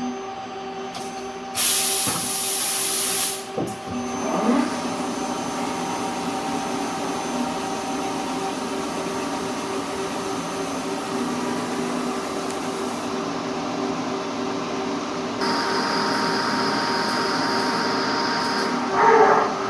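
Machine tool running with a steady hum of several constant tones. A loud burst of hiss comes about two seconds in, and the sound changes about three-quarters of the way through.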